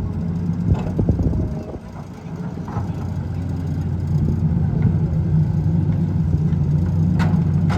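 Hitachi EX200 excavator's diesel engine running steadily. It drops briefly about two seconds in, then picks up and runs harder through the rest. A couple of knocks come about a second in, and a sharp clank near the end.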